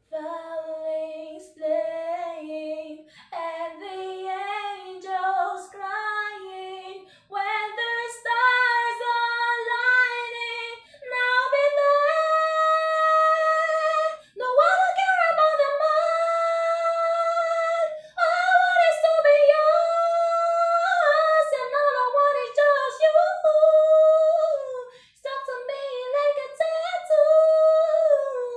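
A woman singing solo and unaccompanied in a high voice, phrases with long held notes broken by short pauses for breath.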